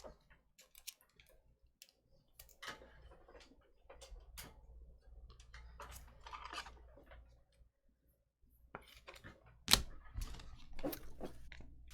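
Trading cards handled one after another: soft scattered clicks and brief rustles of card stock, with a sharper snap near the end.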